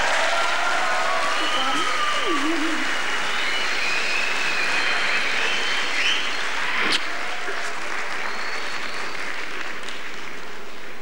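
Studio audience applauding steadily, with cheers and a few high whistles over it.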